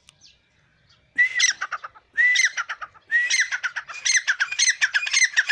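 Caged francolin (teetar partridge) calling loudly: after about a second of near quiet, runs of shrill, hooked notes start, break off twice, then run together into a fast, continuous series toward the end.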